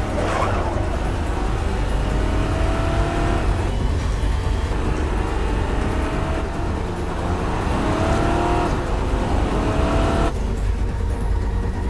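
Car engines revving hard under acceleration over a steady low road rumble, the engine pitch rising several times as the cars speed up.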